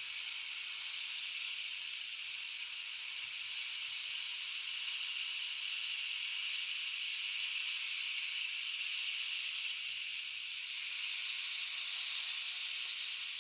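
One-metre rain stick with its fill trickling down inside, making a continuous high, rain-like hiss. The hiss dips slightly about ten seconds in and then swells again.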